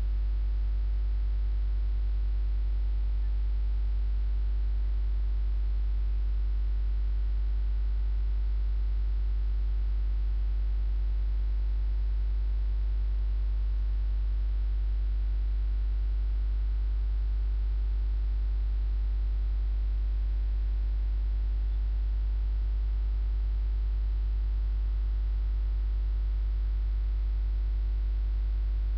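Steady electrical mains hum with a faint hiss, unchanging throughout, with no separate sounds above it.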